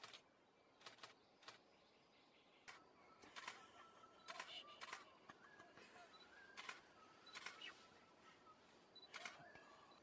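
Camera shutter firing in sharp clicks, often doubled, at irregular intervals about once a second, over faint, thin bird calls.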